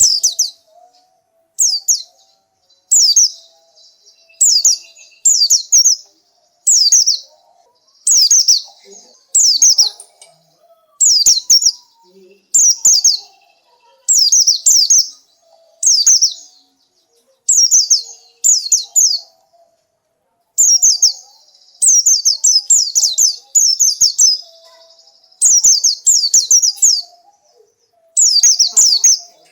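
Pleci (white-eye) singing: short, high twittering phrases of quick downward-sliding notes, repeated about once a second, with a brief pause around twenty seconds in.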